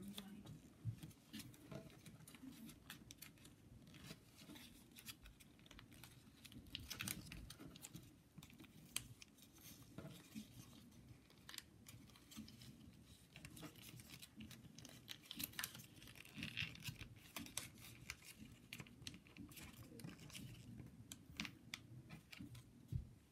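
Faint rustling and crinkling of origami paper being folded and creased by hand, with many small irregular crackles and ticks.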